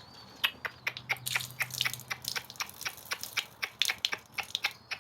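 Homing pigeon drinking thirstily from water set out for it: a quick, irregular run of small beak clicks and sips.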